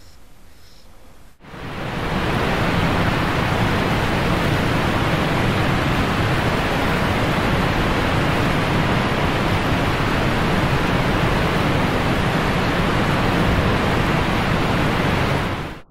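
A steady, even rushing hiss. It starts abruptly about a second and a half in, holds at one level and cuts off suddenly just before the end.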